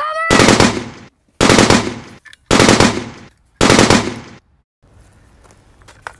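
Four bursts of machine-gun fire, each about a second long with about a second's gap between them, then the firing stops.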